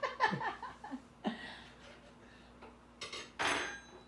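Brief wordless vocal sounds with wavering pitch in the first second or so. Then a short hissy scrape or clatter about three seconds in.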